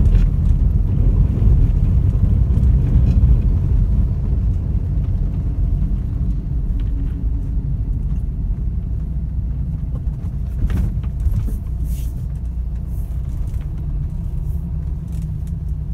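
A car in motion heard from inside the cabin: a steady low rumble of engine and road noise.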